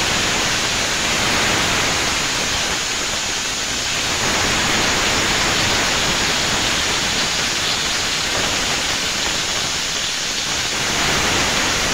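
Potato and pointed gourd pieces frying in hot oil in a wok, sizzling steadily.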